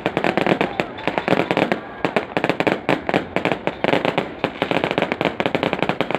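Aerial fireworks going off in a rapid, continuous string of cracks and bangs, many a second, with crowd voices underneath.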